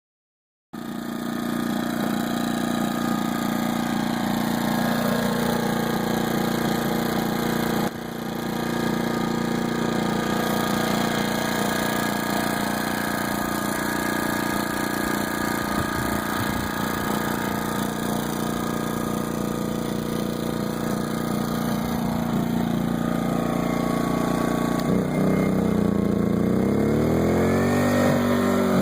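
Smarter Tools 2000 W inverter generator running steadily while charging a DC battery. Its engine speed drops about five seconds in and climbs again near the end.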